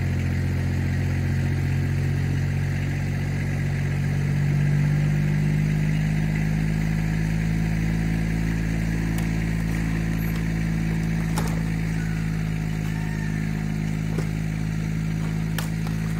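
Engine of the vehicle pulling on a tow strap tied to a barn wall, running steadily and rising slightly in pitch and level about four to five seconds in as it takes up the strain. A couple of faint sharp ticks come later on.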